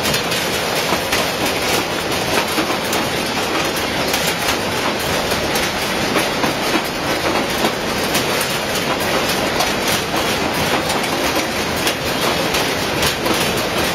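Weight-grading grapefruit sorting line running: a loud, steady clatter of the conveyor and its plastic fruit cups carrying grapefruit, thick with small clicks.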